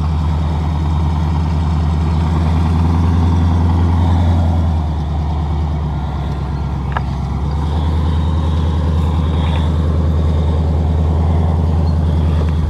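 Truck engine running steadily close by, easing off slightly about five seconds in and coming back up around eight seconds.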